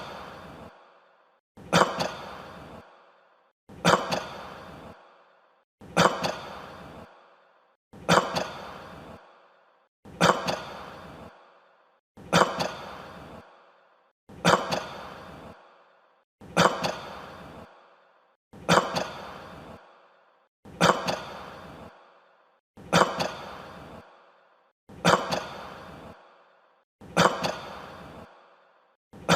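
A person coughing once about every two seconds, some fourteen times in an even, unchanging rhythm. Each cough is a sharp burst that trails off into a breathy exhale, with silence between coughs.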